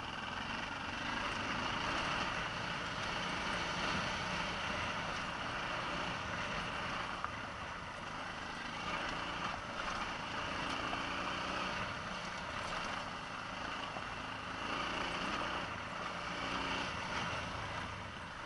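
Vehicle engine running steadily while driving up a loose gravel mountain track, mixed with the rush of tyres over the gravel.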